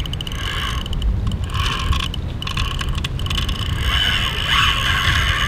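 Heavy spinning reel whirring in several bursts with fine clicking while a sturgeon is being fought on a tight drag. A steady low rumble runs underneath.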